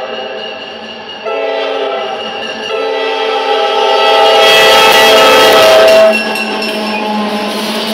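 Maryland Midland diesel locomotives' multi-note air horn sounding a chord in several blasts, with brief gaps about one and three seconds in. The horn swells loud as the lead locomotives pass close by, mixed with their engine and rail noise. The loudest part cuts off abruptly about six seconds in.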